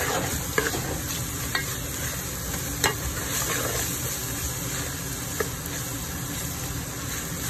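Chopped onions, green chillies and ginger-garlic paste sizzling in hot oil in a metal pot while a metal spoon stirs them, with a few sharp scrapes and knocks of the spoon against the pot. This is the masala base being fried until the ginger-garlic is well browned.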